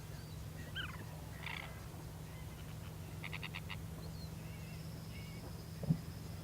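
Birds calling: several short chirps and a quick run of about six high notes, over a steady low hum. A brief low thump near the end.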